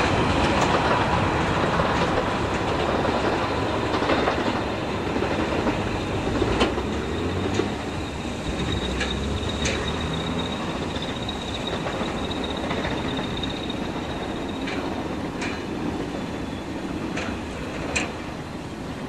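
A long train rolling past on the main line and drawing away: a steady rumble of wheels on the rails with scattered clicks over the rail joints and a faint high wheel squeal through the middle, slowly fading.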